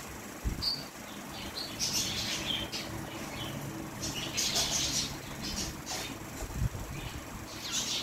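Pet parrots, an Indian ringneck parakeet and a cockatiel, giving short, high, scratchy chirps and chatter in several bursts, busiest about two seconds in and again around four to five seconds in. Two low thumps stand out, one about half a second in and one late on.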